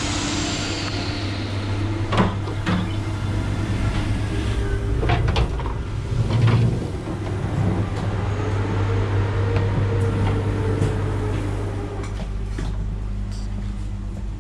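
Steady low hum inside a passenger train coach, with scattered knocks and clicks from doors and fittings and a short hiss at the start.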